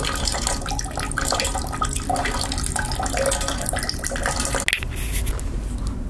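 Thin stream of water running from a small nozzle and splashing steadily as it falls.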